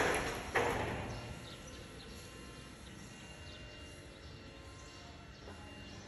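Two sharp knocks about half a second apart, each trailing off over about a second, then a faint steady background.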